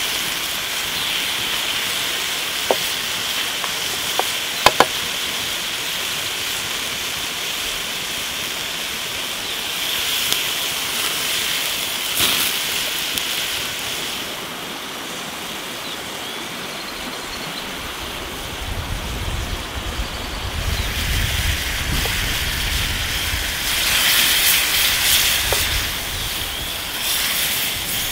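Beef chunks frying in an iron skillet over a wood fire, a steady sizzling hiss with a few sharp crackles in the first seconds. A low rumble joins about two thirds of the way through, and the sizzle swells louder near the end.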